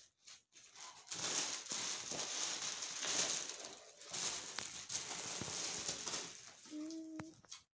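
A black plastic bag rustling and crinkling as fava bean pods are pulled out of it by hand, a long stretch of crackly noise. Near the end comes a brief low pitched call.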